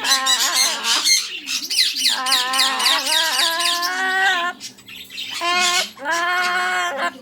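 A pet parrot calling in a long run of loud, wavering, song-like squawks and chirps, after being urged to sing. The run breaks off briefly a couple of times near the end.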